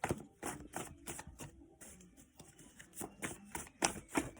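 A deck of reading cards being shuffled and handled: a quick, irregular run of flicks and taps.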